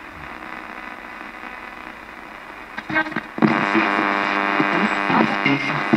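Ghost box: a Thomson portable radio sweeping through its stations, giving steady hissing static for about three seconds. It then jumps to a louder, garbled stretch of broadcast sound with a steady buzzy tone.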